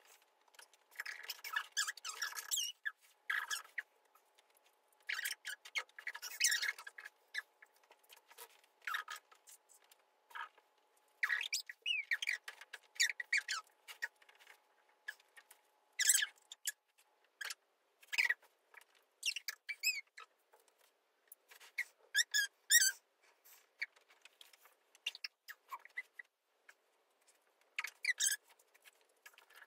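Short, high-pitched squeaks in irregular clusters, some sliding up or down in pitch, with gaps of quiet between them.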